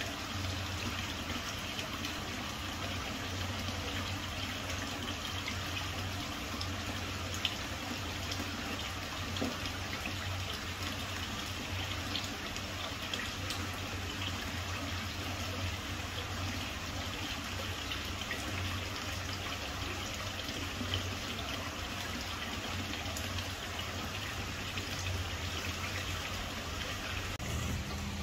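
Water from a small pond waterfall spout pouring and splashing steadily into a koi pond, with a low steady hum underneath.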